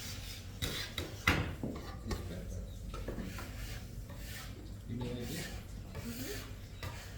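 Hands kneading fresh pasta dough on a wooden board: a series of rubbing, pushing strokes.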